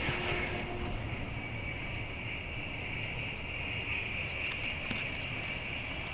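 Passenger train running at speed, heard from inside the carriage: a steady low rumble under an even high hiss, with a few faint clicks.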